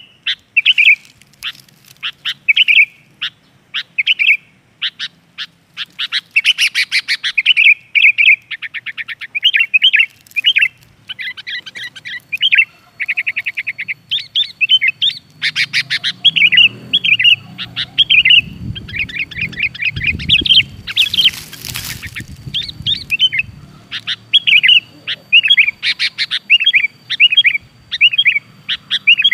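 Sooty-headed bulbul (kutilang) singing: a long run of short, bubbly whistled phrases, repeated over and over, with a few fast trills mixed in.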